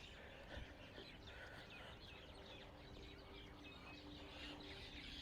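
Faint chirping and twittering of many small birds, with quick short calls throughout.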